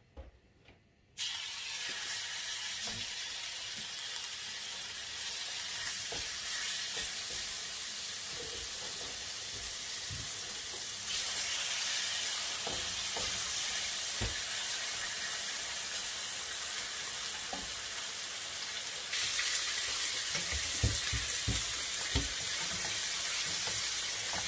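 Chicken breasts frying in hot oil in a non-stick pan: a steady sizzle that starts suddenly about a second in. Occasional light knocks come from the spatula and tongs against the pan.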